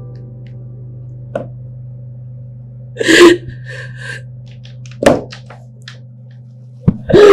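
A woman sobbing, with three loud gasping sobs: about three seconds in, about five seconds in, and near the end. A steady low hum runs underneath.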